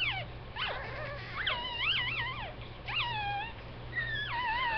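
Two-day-old Shih Tzu puppies crying: high, wavering squeals, about four in a row with short gaps between.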